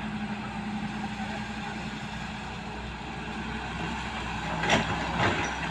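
Hydraulic excavator's diesel engine running steadily, with two sharp knocks near the end, about half a second apart.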